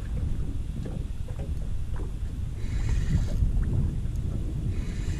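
Wind rumbling on the microphone and small waves slapping against the boat's hull. Two short whirring bursts, about halfway through and near the end, are a fishing reel being wound in against a hooked fish.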